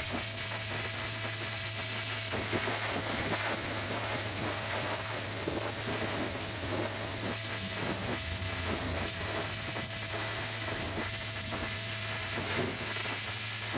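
Pressure-washer jet blasting wooden decking boards: a steady spraying hiss, with a steady low machine hum underneath.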